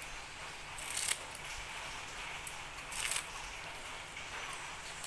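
Scissors snipping through a bunch of pandan leaves, two crisp cuts about two seconds apart and a third starting at the very end.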